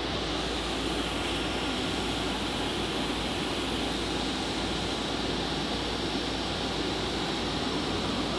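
Automatic offset printing plate processor running with a steady, even rushing hum as a plate feeds out through its exit slot.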